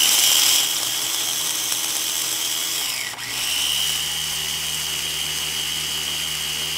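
Electric mini chopper motor running with a high whine, chopping sliced lemongrass. It winds down and stops briefly about three seconds in, then starts again as the top is pressed once more.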